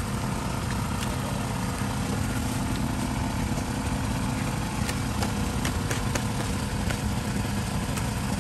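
A steady engine-like drone, as of a motor running, with a few light clicks in the second half.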